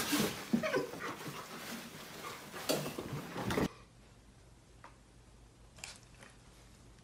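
A dog vocalizing close to the microphone, mixed with sharp clicks, cutting off suddenly about three and a half seconds in; after that only a few faint taps.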